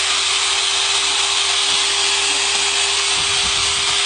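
Makita 1,500-watt electric chipping gun (demolition hammer) running steadily, loud, with a constant whine.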